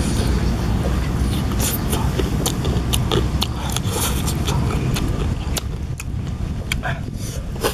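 A person chewing roast chicken with the mouth close to the microphone: many short wet smacks and clicks, over a steady low rumble.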